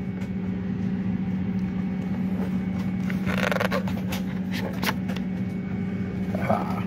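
Steady hum of an Airbus A320 airliner cabin, a low drone over a haze of air noise. Paper rustles as the in-flight menu's pages are turned about halfway through, with a few light handling clicks later.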